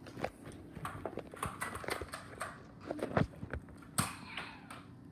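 Scattered knocks and taps at an uneven pace, loudest about three seconds in and again at four seconds.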